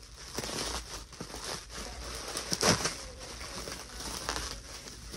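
Clear plastic packaging crinkling and rustling as hands pull an item out of its bag, with one louder, sharp crackle about two and a half seconds in.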